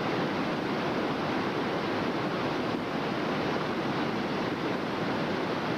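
Whitewater rapids on a river rushing steadily.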